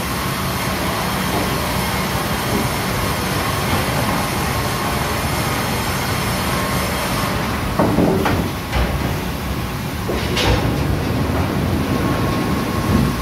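MEBOR VC 900 E16 multirip saw line running: the saw and its chain-and-roller conveyors make a steady mechanical noise. In the second half come a few sharp knocks as timber moves along the conveyors.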